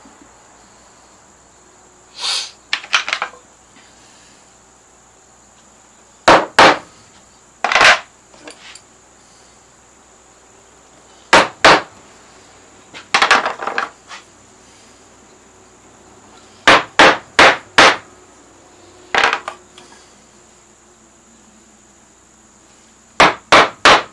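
A mallet striking a carving gouge, driving it into Alaskan yellow cedar: sharp taps in short groups of one to four, every few seconds.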